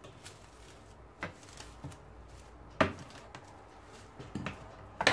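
Kitchen knife working on a wooden cutting board while trimming cling film: a handful of scattered knocks and light scrapes, the loudest a sharp knock about midway.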